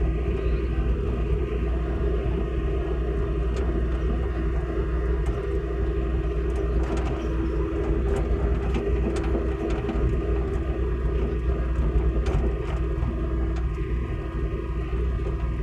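Hitachi mini excavator's engine running steadily, with scattered sharp metallic clicks and knocks over its hum.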